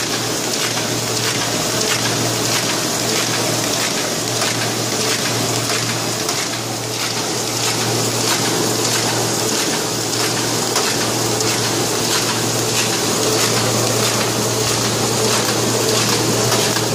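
Ryobi 500N NP offset printing press running: a steady mechanical whir and hiss over a constant low hum, with faint regular ticking from the sheet-feeding mechanism.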